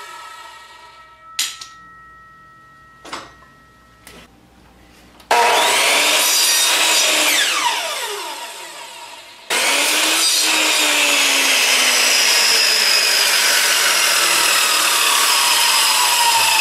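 Compound miter saw cutting chamfers into a 2x8 board. Its blade winds down at the start, followed by a few short wooden knocks. The saw then starts suddenly about five seconds in and fades, and starts again near ten seconds, running loud and steady.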